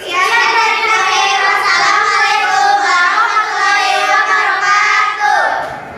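A group of schoolchildren singing a welcome yel-yel (school cheer song) together in long held notes; their voices slide down and fade out near the end.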